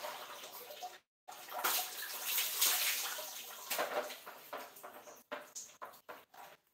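Water splashing during a bucket bath, poured in gushes over the body and onto the floor. The splashing is heaviest in the middle and breaks into short separate splashes near the end.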